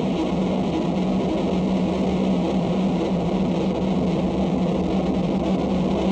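Live harsh noise music: a dense, unbroken wall of distorted sound over a steady low drone.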